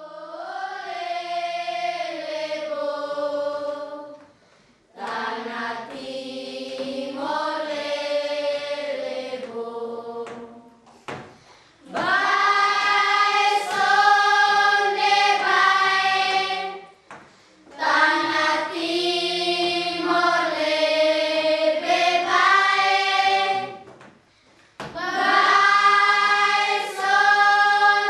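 A class of schoolchildren singing together, in long sustained phrases with short breaks between them.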